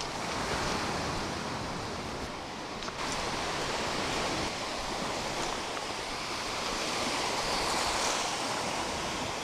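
Surf washing onto a beach: a steady rush of waves.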